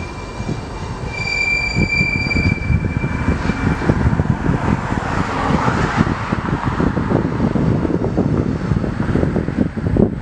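Freight tank cars rolling slowly through yard switches: a high steady wheel squeal for the first few seconds, then rumbling and rapid clattering of wheels over the switch points and rail joints.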